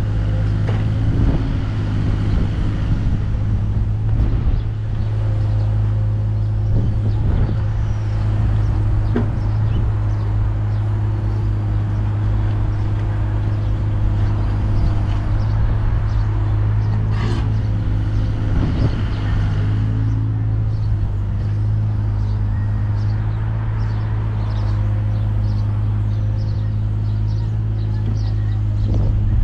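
Takeuchi TB216 mini excavator's diesel engine running steadily at working revs, with scattered clicks and knocks over the top.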